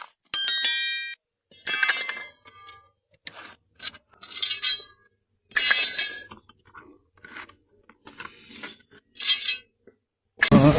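A series of separate sharp clinks and knocks of hard objects, spaced irregularly, the first ringing briefly. A louder, denser burst starts just before the end.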